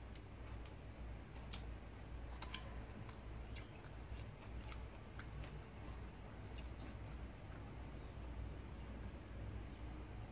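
A person chewing a mouthful of rice and fish with wet lip smacks and scattered sharp mouth clicks, over a low steady hum.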